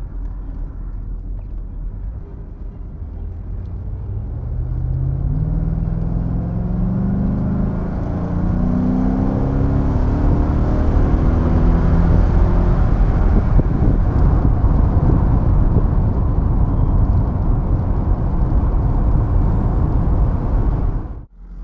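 Mercedes M119 5.0-litre V8, running on new distributor caps, heard from inside the SL500's cabin. It accelerates with a steadily rising engine note for several seconds, then gives way to loud steady road and wind noise at speed. The sound cuts off abruptly near the end.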